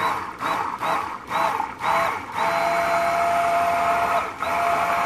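Stick (immersion) blender blending a small cup of thick soap batter with colorant. Its motor whines in about five short pulses over the first two seconds, then runs steadily, with one brief break about four seconds in.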